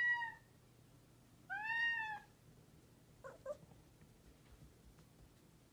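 Ginger tabby kitten meowing: two loud calls that rise and fall in pitch, about a second and a half apart, then a short faint sound about three seconds in. It is a hungry kitten begging for more food.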